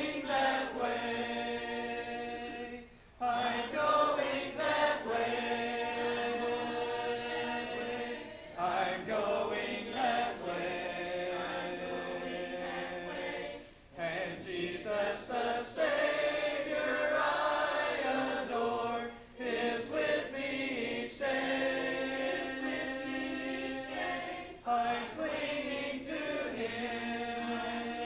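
Congregation singing a hymn a cappella, voices together in long held phrases with short breaks for breath between them.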